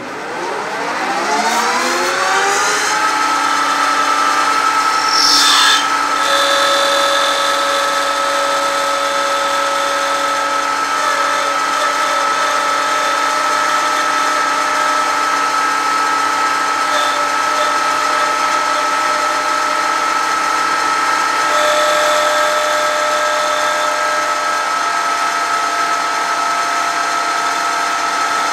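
Industrial lathe turning brass. The spindle spins up over the first three seconds, its pitch rising, then runs at a steady whine. Higher and lower ringing tones from the cut come and go, with a brief harsh burst about five seconds in and another spell of ringing about twenty-two seconds in.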